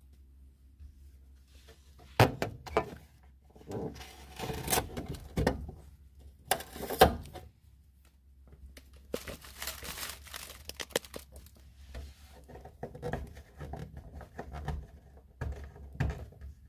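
Protective stickers and film being peeled off a new fridge freezer's plastic parts: bouts of rustling and tearing broken by knocks of the parts being handled. The sharpest knocks come about two seconds in and about seven seconds in.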